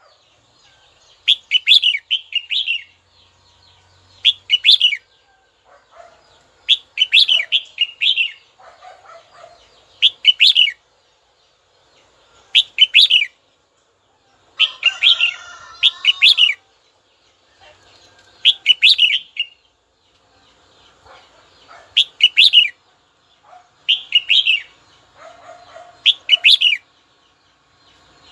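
Red-whiskered bulbul singing short, bright warbled phrases, about ten of them, each roughly a second long and repeated every two to three seconds, with fainter chatter in between.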